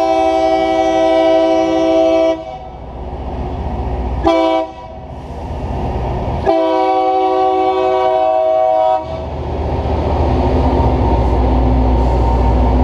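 Loram rail grinder train's air horn sounding for a grade crossing: a long blast, a short one and another long blast, each a chord of several notes. After the horn the train rumbles past with its engines running, the grinding units not grinding.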